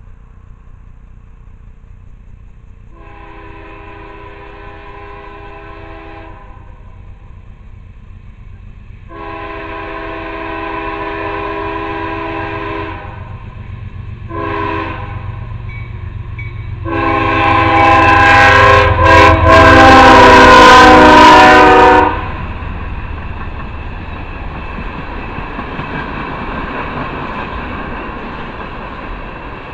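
CSX freight locomotive's air horn sounding the grade-crossing signal: long, long, short, long. The last long blast is by far the loudest, coming as the locomotive draws level, over a deepening diesel rumble. After the horn cuts off, a steady rumble and wheel clatter of ethanol tank cars rolling past.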